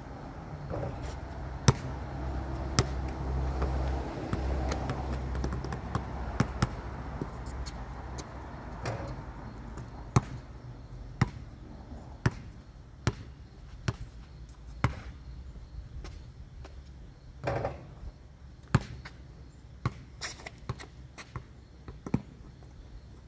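Sharp knocks or bounces repeating irregularly, roughly once a second, over a low rumble that fades out over the first nine seconds.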